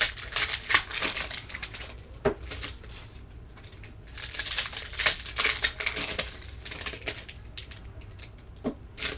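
Basketball trading cards being handled and flipped through by hand: irregular light clicks and papery rustles as cards slide against each other.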